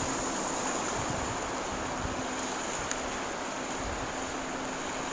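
Steady rush of shallow stream water, with a person in waders splashing through it.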